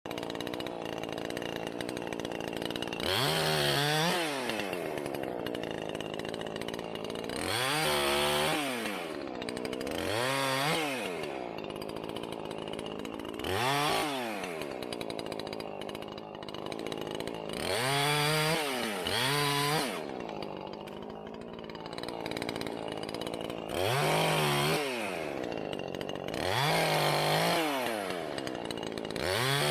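Gas chainsaw idling and being revved to full throttle then dropping back to idle, about nine times over the stretch, each rev a rising then falling whine a few seconds apart: short cuts in wood.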